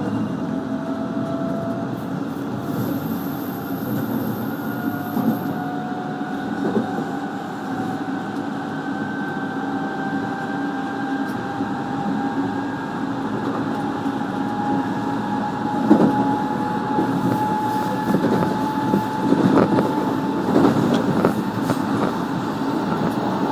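223 series electric train running with its traction motor whine slowly rising in pitch as it gathers speed, over a steady rumble. Several knocks from the wheels over rail joints come about two-thirds of the way in.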